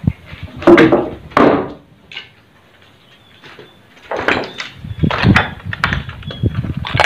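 Footsteps crunching and clattering over loose broken floor tiles and rubble, at a walking pace. There is a quiet pause about two to four seconds in, then steady steps again.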